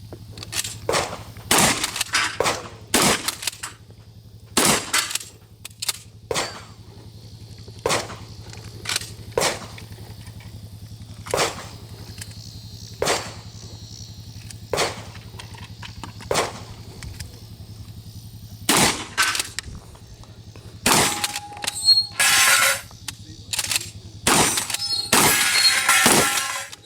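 Shotgun fired shot after shot at a practical shooting stage: about twenty sharp reports, mostly a second or two apart, some in quick pairs. Near the end the shots come faster and run together with ringing.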